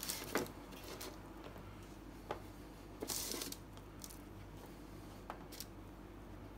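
Firm, oven-dried homemade dog biscuits being picked up off baking paper and set down on a wire cooling rack: scattered light clicks and taps, with a short rustling scrape about three seconds in.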